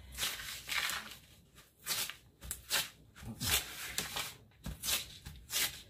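Crumpled paper towel rubbed and dabbed over vinyl decals on a painted wooden board: a string of short, irregular rustling swishes. The towel is taking the tack off an over-sticky adhesive area so the vinyl can be moved.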